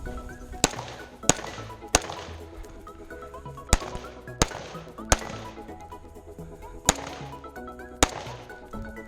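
Rifle shots, eight in all: a string of three about two-thirds of a second apart, a second string of three, then two single shots near the end, heard over background music with a melody.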